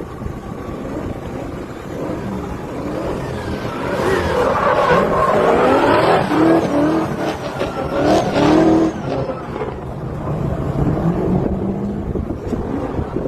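Drift car engine revving hard, its pitch sweeping up and down with the throttle, growing louder from about three seconds in, loudest for several seconds, then easing off as it moves away.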